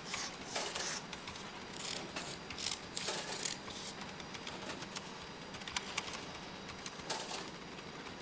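Shredded newspaper rustling and crackling in irregular bursts as a person moves about and sinks into a heap of it.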